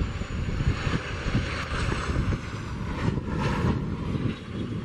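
Twin-engine business jet landing: a faint high engine whine over heavy wind buffeting on the microphone, with a brief louder rush of noise about three seconds in as it touches down.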